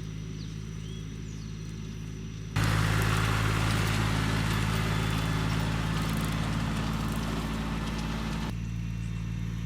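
A vehicle engine idling steadily. About two and a half seconds in, a loud rush of noise starts suddenly, runs for about six seconds over the engine, and cuts off suddenly.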